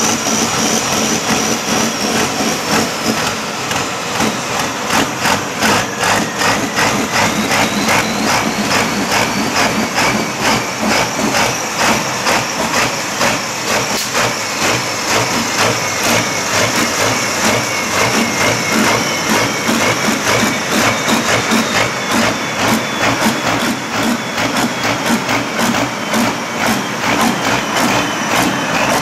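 Diesel engines of modified pulling tractors idling and running at low revs, a steady rapid pulsing with a thin high whine above it that wavers in pitch.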